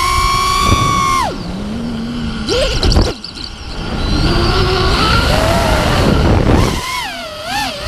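Brushless motors and 5-inch three-blade propellers of a Vortex Pro FPV racing quad whining with the throttle: a high steady whine drops sharply about a second in, surges back up, gives way to a rushing stretch with a rising tone, and wavers up and down near the end as the throttle is blipped.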